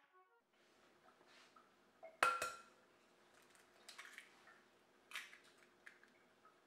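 Kitchen clinks from glass and china: a sharp ringing knock about two seconds in, then lighter clicks and taps as an egg is cracked into a glass mixing bowl.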